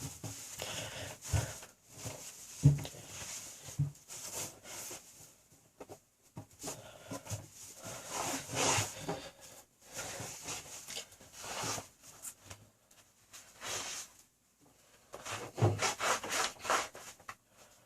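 A cloth rubbing over a sneaker to dry it after washing: uneven spurts of scrubbing strokes, with a few soft knocks as the shoe is handled.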